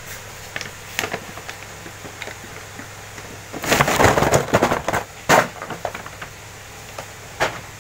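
Cardboard toy boxes rustling and knocking as they are moved, loudest for about a second midway, with a few sharp clicks, over a steady low hum.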